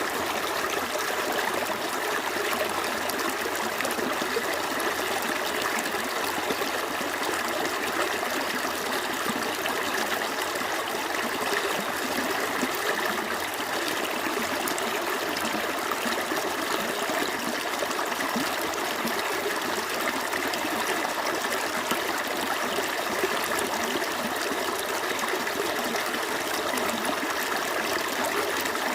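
A small stream running steadily over stones, an even rush of water with fine trickling and gurgling.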